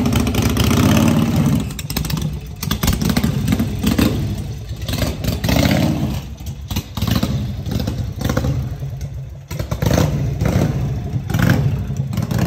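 V-twin chopper motorcycle engine running steadily, then about two seconds in the bike pulls away and the engine rises and falls with the throttle as it rides off.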